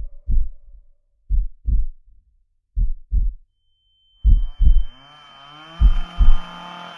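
Heartbeat sound effect: five slow double thumps, lub-dub, about one and a half seconds apart. From about halfway, a wavering drone and a high steady tone swell in underneath.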